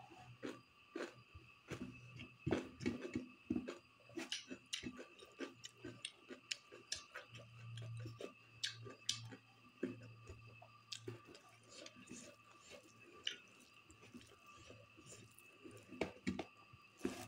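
Close-miked eating sounds: chewing and mouth noises with many irregular small clicks and squishes as fingers mix rice and pork curry on a steel plate. A faint steady high whine sits underneath.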